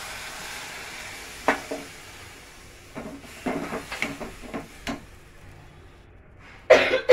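Water poured into a hot steel kadai of fried chicken masala hisses and sizzles, fading over a few seconds. A steel ladle then scrapes and knocks against the pan as the curry is stirred, and a cough breaks in near the end.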